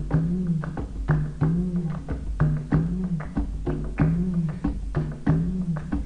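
Background music: a repeating low bass figure under a steady pattern of quick percussive clicks.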